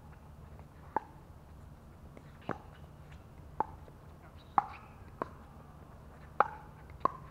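Pickleball rally: paddles striking the hollow plastic ball, about seven sharp pocks at an uneven pace, roughly one a second.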